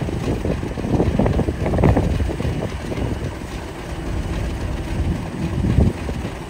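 British Rail Class 50 diesel locomotive with its English Electric 16-cylinder engine running as it creeps forward, with gusts of wind buffeting the microphone.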